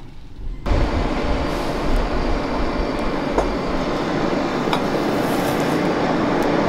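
Forge blower driving air into a charcoal fire: a steady rushing noise with a low hum, starting abruptly less than a second in. A few light clinks sound over it.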